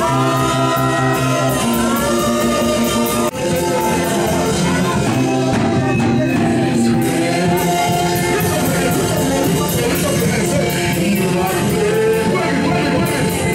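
Live gospel worship song: a lead singer on a microphone sings held, melodic lines over keyboard and steady percussion.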